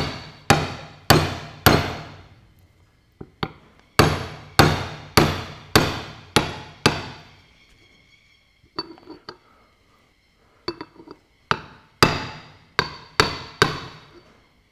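Hammer blows on a steel seal driver, tapping a new twin-lip oil seal into a tractor's front wheel hub. The blows come in three runs of about two a second, each with a brief metallic ring. Between the runs there are light metal clinks as the driver is lifted and set back.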